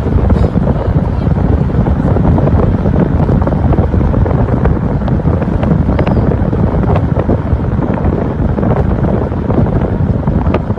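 Wind buffeting the microphone over the steady road and engine noise of a vehicle driving fast, a loud continuous rumble with a few small knocks.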